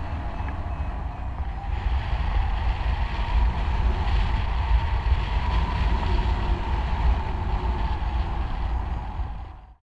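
Wind buffeting the microphone during paraglider flight: a steady, unsteady low rumble with a rushing airflow hiss. It fades out and cuts off shortly before the end.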